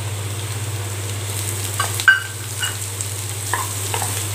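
Diced carrots and onions frying in oil in a nonstick kadai while a wooden spatula stirs them, scraping and knocking against the pan. A handful of sharp knocks come from about two seconds in, the loudest just after two seconds, over a steady low hum.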